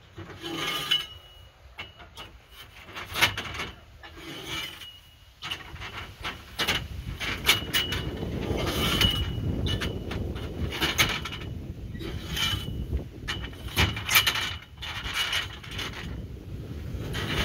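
Long metal tubes clinking and knocking against each other as they are carried and set down, many of the clinks briefly ringing, over a low steady rumble from about six seconds in.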